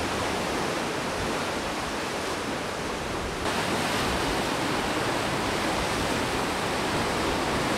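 Sea waves washing and breaking against rocky cliffs: a steady rushing surf that grows a little louder about three and a half seconds in.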